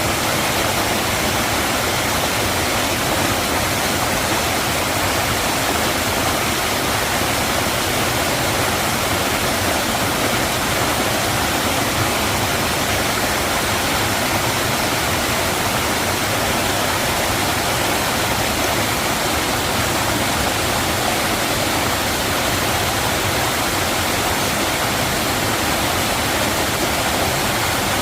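Mountain valley stream rushing steadily over rocks, a constant, even wash of water.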